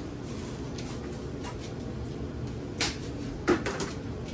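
Two sharp knocks about three seconds in, under a second apart, the second louder, as the emptied plastic dough bucket is put down at the kitchen counter. A low steady hum runs underneath.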